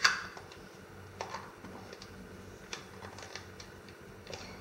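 Sharp plastic click at the start, then scattered lighter clicks and taps from hard plastic ice pop molds and an orange filler tube being handled and fitted together.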